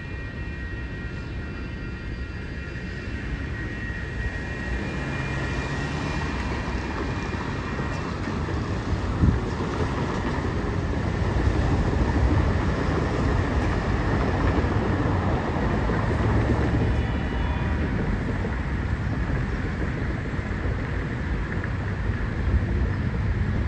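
Union Pacific freight train of tank cars rolling past: a steady rumble of wheels on rail that swells in the middle. There are a few faint high steady tones in the first several seconds and a single sharp clank about nine seconds in.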